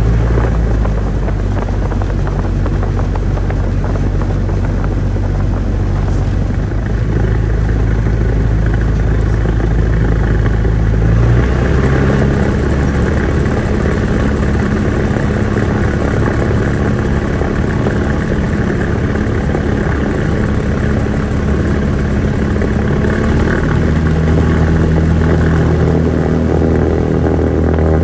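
Cessna 172's piston engine and propeller running as the plane taxis across grass, heard from inside the cabin. The engine note steps up about eleven seconds in as power is added, and shifts again near the end.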